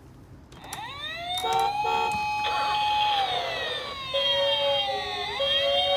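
Emergency sirens sounding together: a wail that climbs about a second in, holds, then slides down and climbs again, overlapped by a two-tone siren switching back and forth between two pitches.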